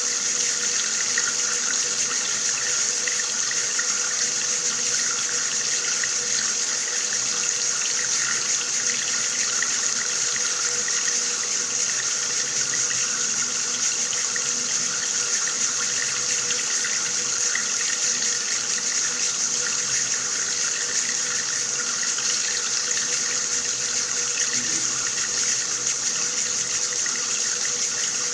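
Water running steadily from a tap in an even, unbroken stream.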